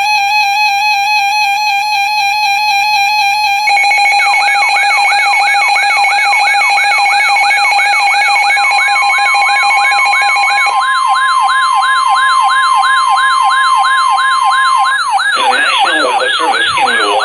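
Electronic alert tones: a steady buzzy tone, then a siren sweeping rapidly up and down about three times a second. A steady single-pitched alarm tone, like the weather radio's warning tone, joins the sweeps partway through. A broadcast voice starts over the siren near the end.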